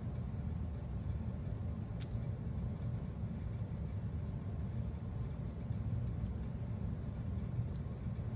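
A steady low rumble of background room noise, with a few faint light ticks.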